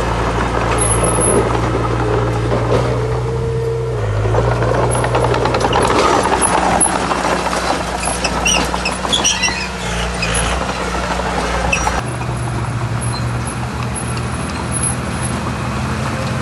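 Diesel engines of heavy earthmoving machinery running steadily, with short high squeaks around the middle and an abrupt change in engine note about twelve seconds in.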